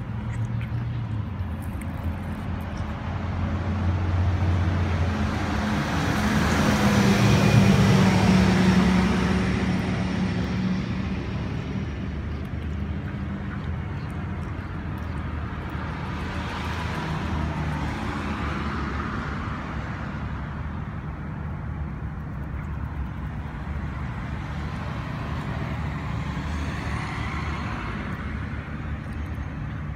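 Road traffic: a steady low engine hum with vehicles passing, the loudest swelling up and fading away about seven or eight seconds in, and two fainter passes later.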